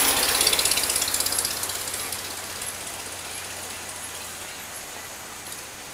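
1912 Stanley Steamer Mountain Wagon passing close by and moving away, a fast mechanical clatter that is loudest at first and fades over the next few seconds.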